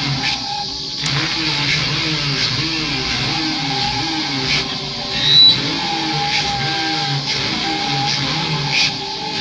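Live improvised electronic music: a low warbling tone swooping up and down about one and a half times a second over a steady higher drone and hiss, with a brief louder accent about five seconds in.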